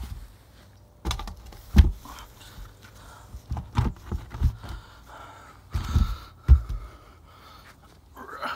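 Irregular knocks and thumps as a plastic septic tank riser lid is handled and pressed into place on its riser.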